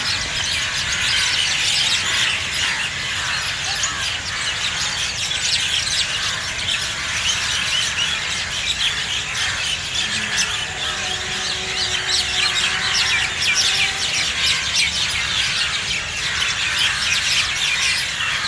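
A large flock of birds chirping and chattering all at once as they settle at their evening roost: a dense, continuous, noisy din of overlapping calls.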